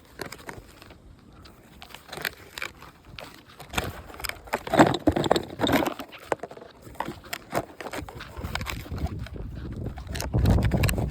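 Brittle asphalt shingles being pried and scraped loose by hand: irregular clicks, knocks and scraping, louder and busier about halfway through, with a low rumble near the end.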